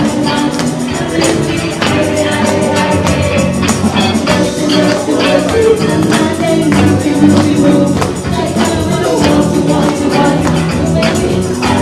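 Live band music: a singer over keyboard, guitar and percussion with a steady beat.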